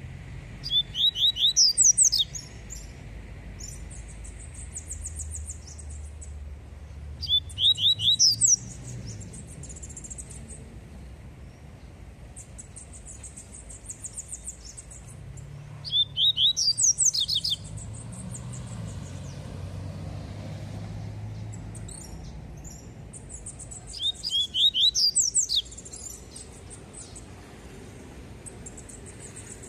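Caged papa-capim seedeater singing its 'tui tui' song: four loud bouts of fast, repeated high whistled notes, each a second or two long and coming about every eight seconds, with softer twittering between them.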